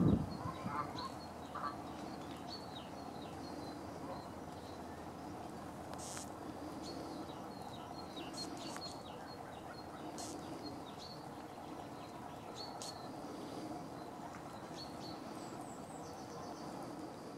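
Small birds, likely the blue tits at the nest, give short, thin, high-pitched calls over and over throughout, over a steady low background hum. A brief, louder low sound comes right at the start.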